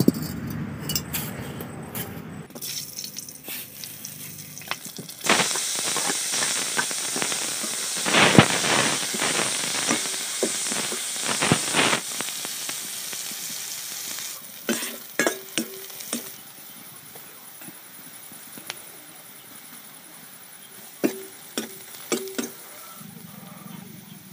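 Sliced onions frying in hot oil in a metal kadai: a loud sizzle starts suddenly about five seconds in, then settles lower. A perforated metal ladle scrapes and clinks against the pan as the onions are stirred, in short bursts later on.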